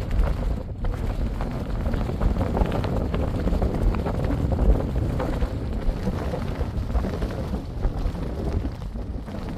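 Wind buffeting the microphone: an uneven low rumble that swells and eases in gusts.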